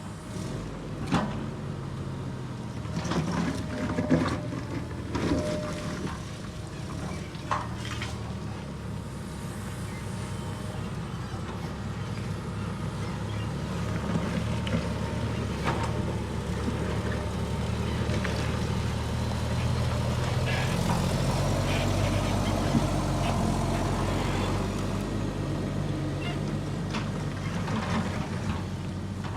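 Heavy construction machinery engine running steadily and growing louder about halfway through, with a few sharp knocks and clanks in the first several seconds.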